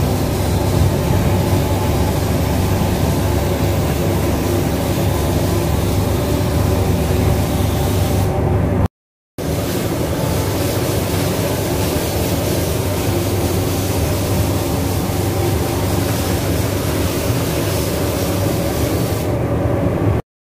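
Gravity-feed spray gun hissing as it sprays black paint onto a car bumper, over the steady drone of the paint booth's ventilation. The hiss stops twice, leaving only the lower drone for about a second each time.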